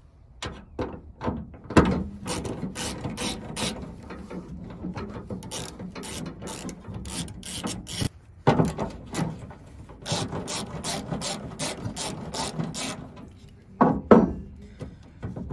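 Socket ratchet wrench clicking rapidly as it backs out the two bolts holding a tailgate handle assembly. Two long runs of clicking with a brief pause between them, just after the middle.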